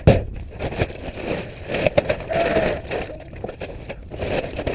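Dry feed grain, scratch grain and layer pellets, being poured and stirred in a container: a crackling, rattling rustle with scrapes and many quick clicks, starting with a sharp knock.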